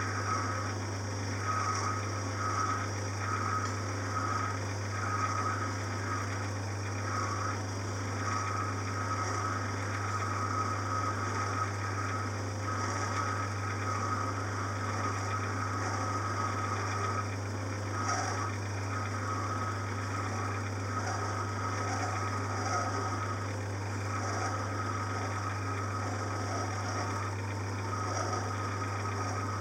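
Small metalworking lathe running while a parting tool cuts off a brass piston blank. There is a steady low hum, with a high-pitched tone that keeps cutting out and returning as the tool feeds in.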